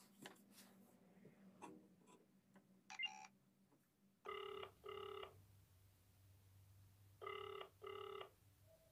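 Ringback tone of an outgoing mobile phone call, played quietly through the phone's loudspeaker: the double 'ring-ring' pattern, two short tones then a pause, starting about four seconds in and heard twice. Before it come a few soft handling clicks and a brief beep from the phone.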